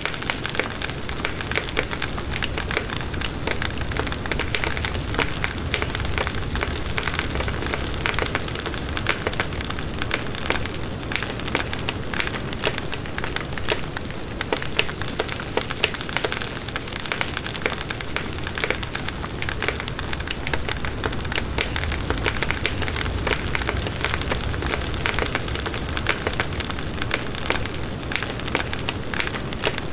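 Wood bonfire crackling steadily: a dense stream of small pops and snaps over a low rush of flame.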